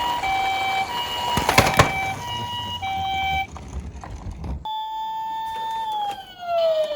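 Toy emergency vehicle's electronic sirens: a two-tone hi-lo siren alternating between its two notes about once a second, over a low rumble with a short clatter partway through. About four and a half seconds in, a different siren sounds a steady tone and then slides down in pitch.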